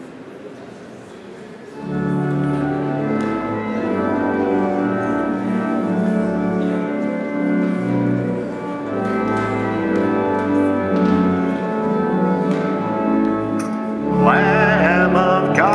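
A low murmur of voices, then an organ begins playing sustained chords about two seconds in. Near the end a solo singer with a wide vibrato comes in over the organ.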